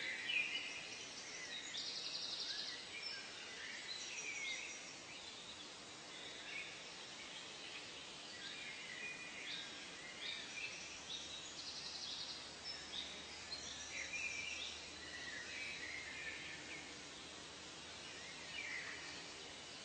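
A chorus of many birds calling over a faint steady hiss of background ambience: short whistled notes that slide up or down in pitch, overlapping one another, with a quick buzzy trill about two seconds in and again about twelve seconds in.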